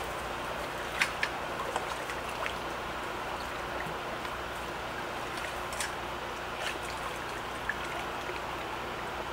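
Water of a shallow stream trickling steadily, with a few short splashes and knocks as people wade and work nets in it.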